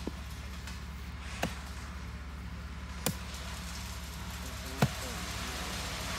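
Pickaxe blows striking into soil four times, about a second and a half apart, the last one the loudest, over a steady low hum.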